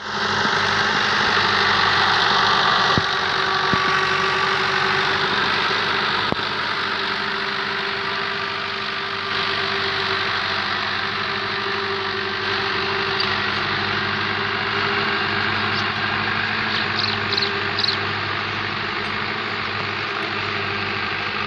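New Holland 640 tractor's diesel engine running steadily under load while pulling a disc plough through the soil, growing a little fainter as the tractor moves away.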